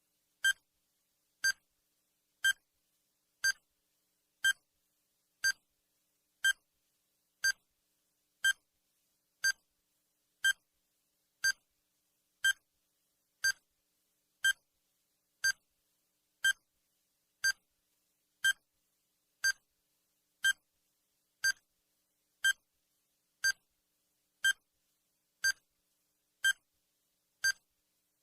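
Countdown timer's sound effect: a short, high electronic beep once every second, marking off each second of the countdown.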